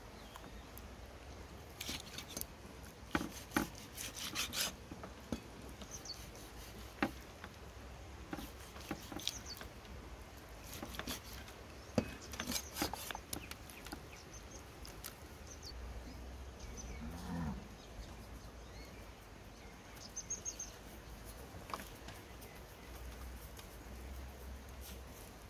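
Cleaver knocking irregularly against a wooden chopping block as raw chicken breast is sliced, the knocks clustered in the first half. A short low call sounds about two thirds through.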